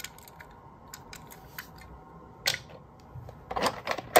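Toy cars being handled, with irregular light clicks and taps and a few louder clatters in the second half, ending in one sharp click.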